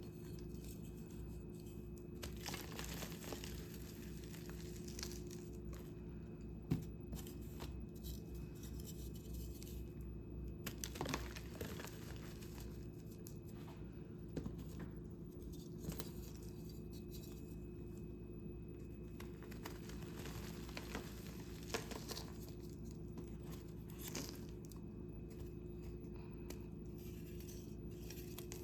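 Blocks of gym chalk being crushed and crumbled, in irregular bursts of crunching and crackling with a sharp snap about seven seconds in, over a steady low hum.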